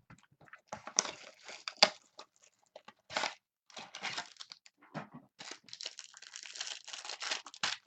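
Trading card pack wrapper crinkling and being torn open, with the cards inside rustling as they are handled; the rustling grows thicker and more continuous about halfway through.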